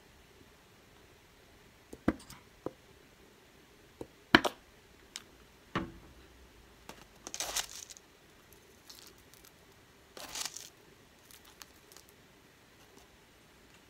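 A few sharp clicks and knocks, the loudest about four seconds in, as the sauce bottle and food containers are handled. Then crispy fried onions rustle twice as a spoon scoops them from a plastic tub onto a burger bun.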